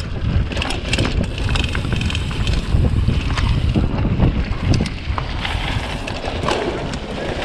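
Wind buffeting the microphone while a mountain bike is ridden fast over a dirt track, a loud low rumble, with scattered clicks and rattles from the tyres and bike on the rough ground.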